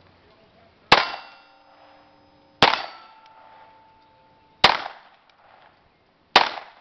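Four pistol shots, spaced just under two seconds apart, each followed by a brief metallic ring from a struck steel target plate.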